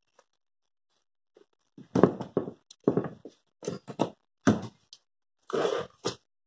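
Power tools being handled and set down on a wooden workbench: an irregular run of knocks and clunks that starts about two seconds in.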